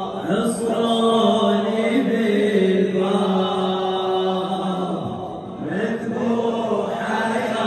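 A Shia latmiyya lament chanted by a male reciter through a microphone, in long held, sung phrases with a brief break about five seconds in.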